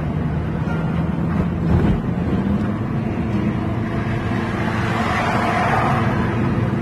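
Car cabin noise while driving: a steady rumble of road and wind noise.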